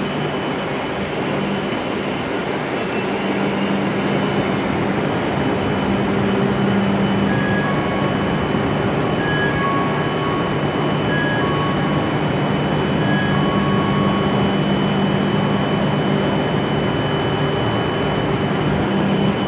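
W7 series Hokuriku Shinkansen train slowing into the platform and coming to a stop, with a high brake squeal for the first few seconds. It then stands with a steady loud hum from its running equipment. From about seven seconds in, a two-note electronic beep alternates over the hum.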